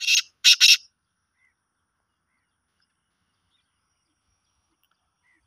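Black francolin calling: three loud, harsh, grating notes in quick succession within the first second, the last two close together.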